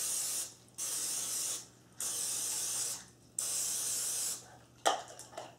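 Aerosol nonstick cooking spray hissing into ceramic ramekins in four bursts of about a second each, with short pauses between them. A sharp knock comes near the end.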